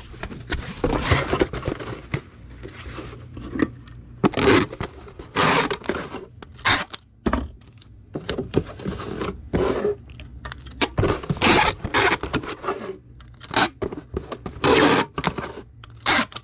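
Irregular scraping, rustling and tearing as packing materials are handled, most likely a small cardboard shipping box being taken out and set up, in a series of short bursts.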